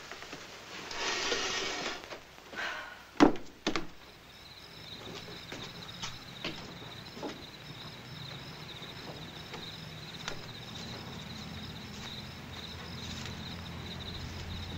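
Two sharp knocks about three seconds in, then night ambience of crickets chirping steadily, with faint scattered footsteps and a low hum underneath that grows slightly louder.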